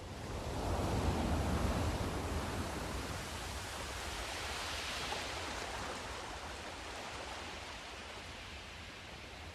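Sea surf: a wave breaks with a low rumble about a second in, then washes in with a hiss that peaks midway and slowly fades.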